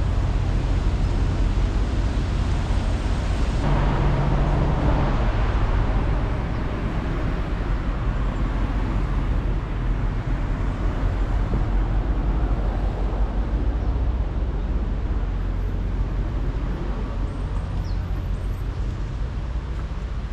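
Road traffic going by steadily, with one vehicle passing louder about four seconds in.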